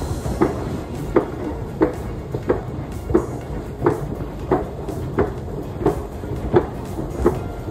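Footsteps climbing the ridged metal steps of a running escalator, an even clunk roughly every 0.7 seconds, over a steady low rumble.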